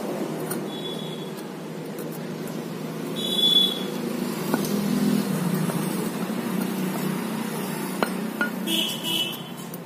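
A few light metal clicks as the new front suspension hub and pivot pin of an LML Vespa are handled while an O-ring is fitted onto them, with a few brief high squeaks, over a steady low background hum.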